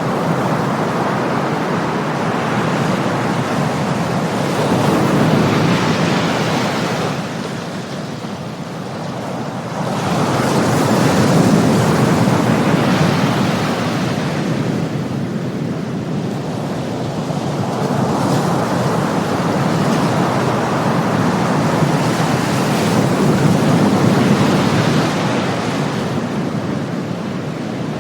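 Ocean surf: a continuous rush of waves that swells and eases slowly, with a lull about seven seconds in before it builds again.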